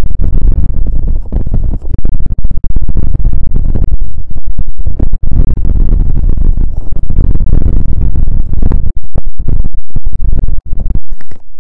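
Rapid, very loud scratching and rubbing directly on an ASMR microphone, dense and bass-heavy, with brief breaks about halfway through and again near the end.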